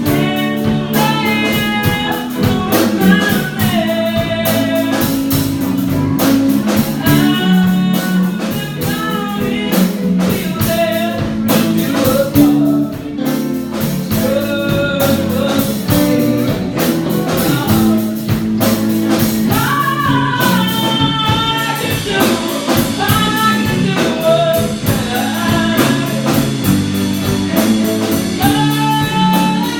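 Rock band playing a song: a singer over guitar and drums.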